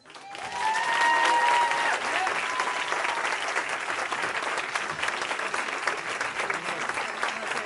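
Audience applauding, starting suddenly and swelling within the first second, then holding steady. A long high cheer rises over the clapping in the first two seconds, with a shorter one after.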